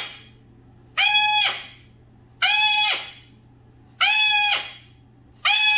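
Ringneck parakeet repeating the same loud, piercing mimicked call over and over, about once every second and a half.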